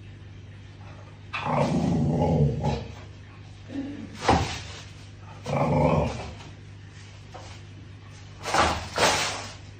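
A dog barking and growling: a drawn-out growly bark about a second in, a sharp bark a little after the middle, another long growly bark soon after, and two quick sharp barks near the end.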